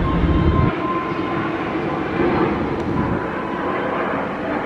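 Airbus A320-family airliner's twin jet engines at climb power after takeoff: a steady broad rumble with a constant high whine, whose deep low end drops away abruptly in the first second.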